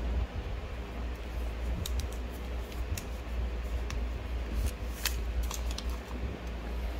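Handling noise of a black plastic wireless-microphone charging case being lifted out of its cardboard box and turned in the hands: scattered small clicks and taps, a cluster of them about five seconds in, over a steady low hum.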